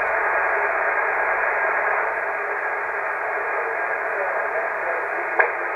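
HF amateur transceiver receiving on the 20 m band: steady hiss of band noise through the narrow single-sideband voice filter, with a weak portable station's voice barely rising above it. A single click sounds near the end.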